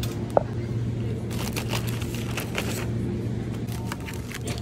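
Plastic grocery packaging crinkling and rustling as items are handled in a wire shopping trolley, over a steady low hum.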